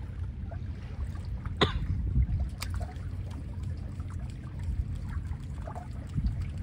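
Sea water lapping and trickling against a small boat's hull over a steady low rumble, with scattered faint knocks and one sharp slap a little under two seconds in, the loudest moment.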